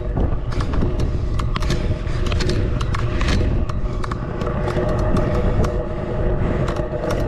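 Wind buffeting the camera microphone while moving fast, a heavy low rumble and hiss, with a steady hum underneath and scattered clicks and rattles.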